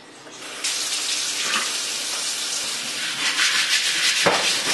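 Kitchen faucet turned on about half a second in, water running steadily from the tap into a stainless steel sink as a rock is rinsed under the stream. One sharp knock near the end.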